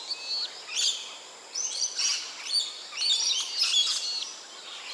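Birds calling in a series of short, high chirps and whistles that come in quick clusters about once a second.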